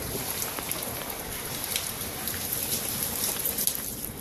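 Steady rainfall: an even hiss of rain, dotted with sharp ticks of single drops striking close by.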